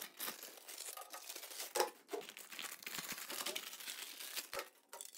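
Thin plastic film packaging crinkling and tearing as it is pulled off white PVC modular switch-board boxes by hand, an irregular crackle.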